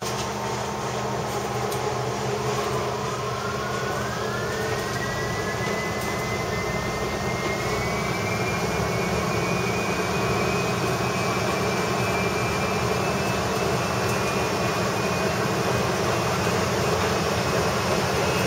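Diesel railcar's engine and drivetrain running as the train gathers speed, heard from inside the car. A low steady hum sits under a whine that rises in pitch over the first ten seconds or so and then holds level.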